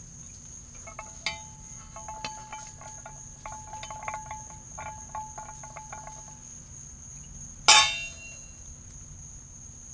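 Metal cookware clinking and ringing in short pings as pots and utensils are handled, then one loud clank with a brief ring about three-quarters of the way through. A steady high insect chirring sounds behind it.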